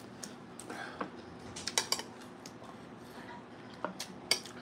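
Metal spoon clicking and scraping against a plate: a few light clinks scattered through, with quiet room tone between.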